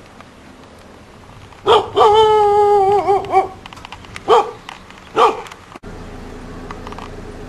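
A dog barking at a house gate: one drawn-out, wavering howl lasting nearly two seconds, then two short barks about a second apart.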